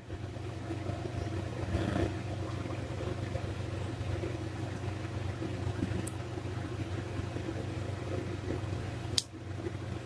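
Small electric fan running with a steady hum, blowing air through a car heater core cooled by spring water in a homemade styrofoam cooler box. A sharp click about nine seconds in.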